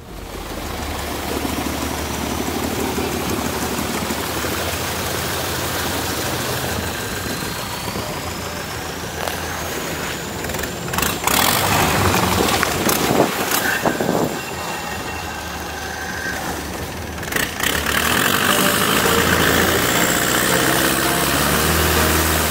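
Royal Enfield single-cylinder motorcycle engine running while riding, under a steady rushing noise. A few sharp knocks come in the second half.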